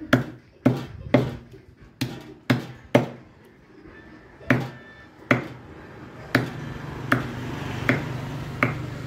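Meat cleaver chopping a country chicken into pieces on a wooden chopping block: about a dozen sharp chops at uneven intervals, roughly one to two a second. A steady low hum comes in about six seconds in.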